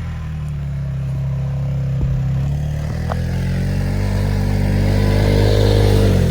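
Vehicle engine held at a steady speed, then revving up under throttle so its pitch climbs steadily through the second half, easing off right at the end.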